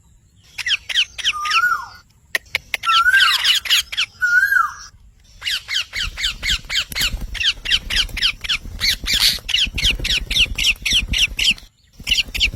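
Pet green parrot squawking in quick bursts of short, harsh, falling calls, about four or five a second, with a few lower whistled notes in the first half. From about halfway the calls run on without a break, pausing briefly near the end before starting again.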